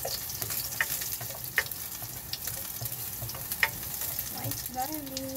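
Chopped garlic sizzling in a little oil in a nonstick wok on a gas burner, stirred with a spatula that taps against the pan a few times.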